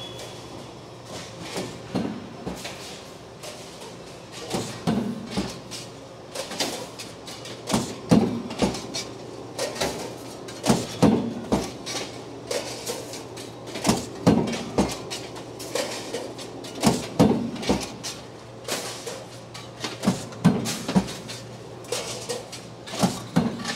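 Large industrial press, rated at 200 tons, cycling: clusters of heavy metal clunks and knocks about every three seconds over a steady low machine hum.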